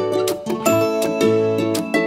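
Upbeat intro music with plucked strings, ukulele-like, over a steady rhythmic bass.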